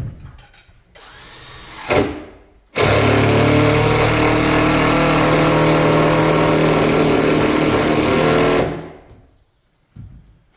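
Power drill driving a screw through a wooden rafter into the wall's top plate: a short burst about a second in, then a steady whir for about six seconds that winds down near the end.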